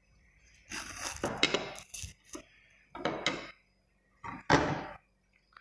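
Handling noise as dry bone specimens are moved about on a hard surface: three bursts of scraping and knocking.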